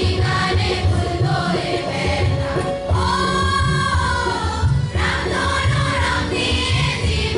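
Song with group singing over a steady beat; about three seconds in a voice holds one long, wavering note.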